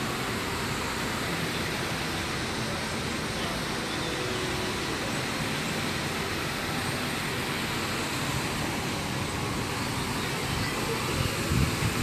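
Steady outdoor city background noise, an even hiss-like din, with a few low rumbling thumps near the end.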